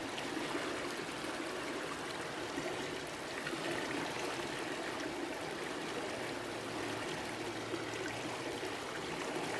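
Creek water running steadily, an even rushing noise with no distinct splashes.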